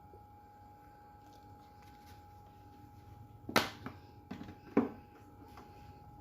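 A few sharp knocks and clinks of kitchen utensils, the loudest about three and a half seconds in and two more within the next second and a half, with lighter ticks between them.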